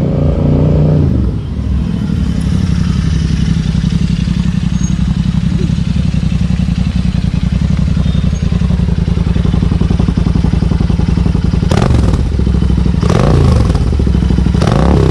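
Royal Enfield Interceptor 650's parallel-twin engine idling with a steady, loud rumble through aftermarket TEC slip-on mufflers. Near the end come two short throttle blips that rise and fall in pitch.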